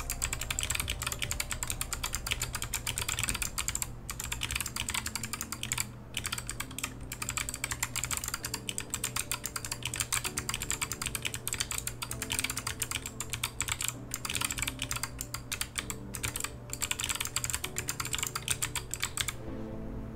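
Fast one-handed typing on a small custom mechanical keypad, one half of a Keebio Nyquist: a rapid, continuous patter of key clicks that stops about a second before the end.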